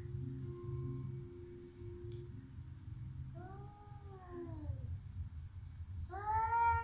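Domestic cats yowling in a standoff: two long, drawn-out yowls that rise and fall in pitch, the second louder and starting near the end, over a low steady hum.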